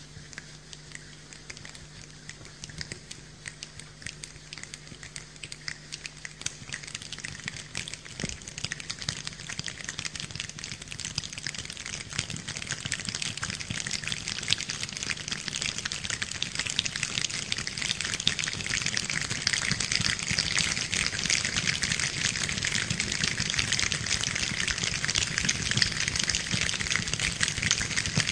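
Rain falling, a dense patter of drops that builds steadily from light to heavy. A low steady hum underneath stops about seven seconds in.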